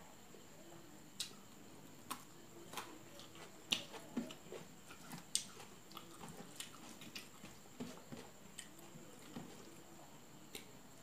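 Close-up eating sounds: wet chewing and lip smacks from a mouthful of rice and curry eaten by hand, coming as irregular sharp clicks, loudest a little under four seconds in and again just past five seconds.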